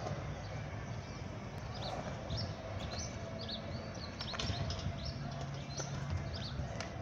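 Small birds chirping in quick, high notes over a steady outdoor hiss, with a few sharp clacks.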